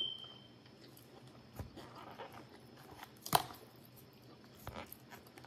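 Mouth-eating sounds as an omelet is chewed, with a few sharp clicks from a plastic fork picking up food, the loudest a little past three seconds in. A brief high ringing tone sounds at the very start and fades quickly.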